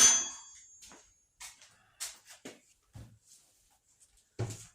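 A ringing metallic clink that fades away, then a few scattered soft knocks and rustles as the tool and its box are handled on a workbench.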